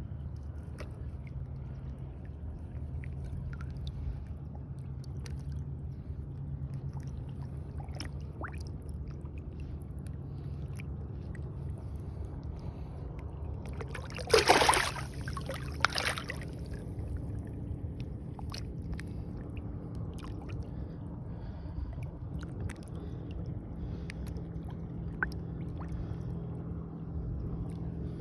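Water sloshing and ticking against a small boat over a steady low hum, broken about halfway through by a loud splash lasting a second or two and then a shorter one.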